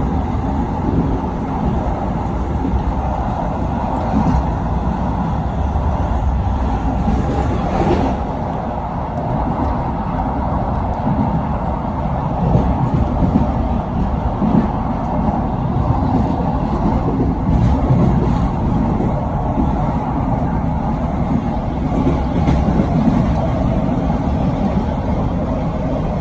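A train running over the Forth Bridge: a steady, loud rumble of wheels on rails, with a few short knocks along the way.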